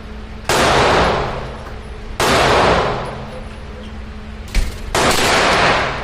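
Three single shots from an Aero Precision EPC 9 9mm carbine, fired slowly about two seconds apart, each with a long echoing tail. A short sharp knock comes just before the third shot.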